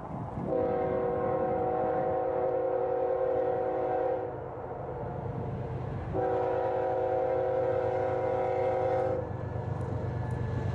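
A diesel freight locomotive's multi-chime air horn sounding two long blasts, each a chord of several notes lasting about three and a half seconds, with a pause between. This long-long opening, with a short blast following, is the standard grade-crossing warning. The low rumble of the approaching train runs underneath and grows toward the end.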